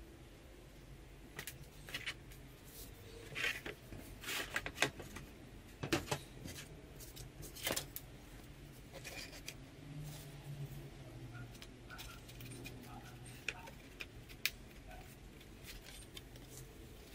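Handling noise on a work table: a string of short clicks, taps and light knocks from small parts and balsa wood being handled. They come most thickly in the first half and grow sparser later.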